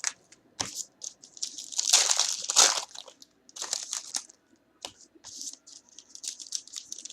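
A trading-card pack wrapper crinkling and tearing as it is opened, in several rustling bursts over the first few seconds, then quick small rustles and ticks of the cards being handled.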